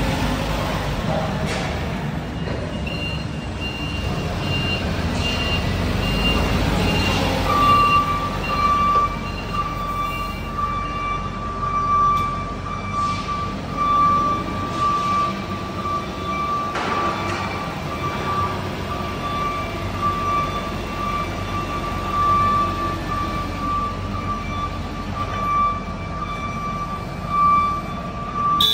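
Cat 2C5000 propane forklift running as it drives off. From about seven and a half seconds in, a forklift's warning alarm beeps steadily and repeatedly, with a few knocks now and then.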